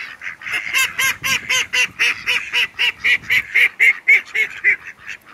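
Waterfowl calling: a fast run of repeated calls, about four a second, that stops shortly before the end.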